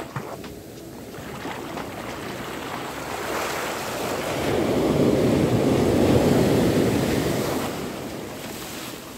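Sea surf washing up the sand, swelling to its loudest about halfway through and fading again near the end, with wind on the microphone.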